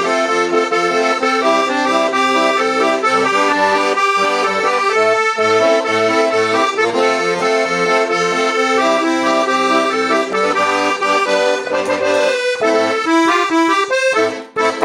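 A Cantulia Bambi accordion being played: a melody over regularly pulsing bass notes and chords. It stops near the end, with the last notes dying away.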